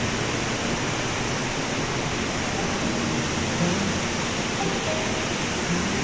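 Mountain river rushing through a narrow rock gorge, a steady, even noise of whitewater.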